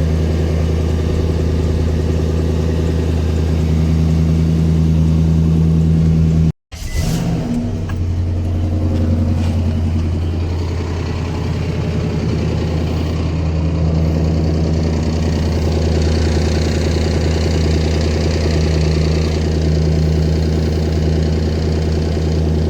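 High-mileage car engine (about 300,000 km) idling steadily, with a brief break in the sound about six and a half seconds in. The owner hears light intermittent tapping and a slight whistle from it, a mechanical problem that he says could be the timing chain.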